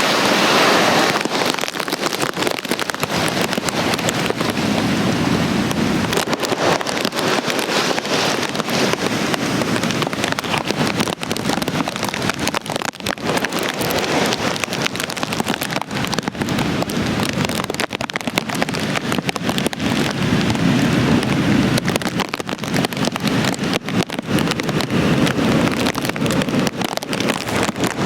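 Hurricane wind and heavy rain, loud and steady, with gusts swelling and easing every few seconds and wind buffeting the microphone.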